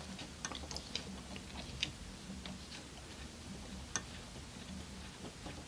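Fly-tying thread being wrapped around a hook and lead eyes in a vise: faint, irregular small clicks and ticks from the hands and tools at the hook, over a low steady hum.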